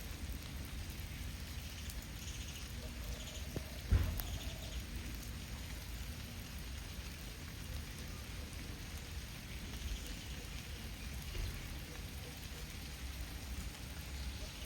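Steady rain falling, with a single sharp knock about four seconds in.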